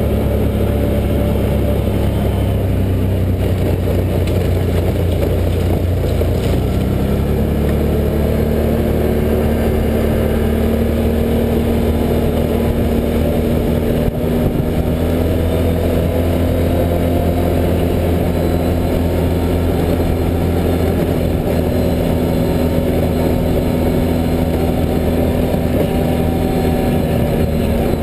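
Can-Am Outlander 1000 ATV's Rotax V-twin engine running steadily under way. Its revs pick up about six to eight seconds in, then hold level. There is one brief knock near the middle.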